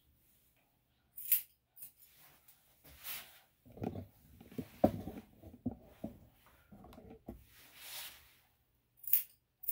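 Grooming scissors giving a few sharp snips early and again near the end. In between come rustling and knocks as the dog's front leg is handled, the loudest knock about five seconds in.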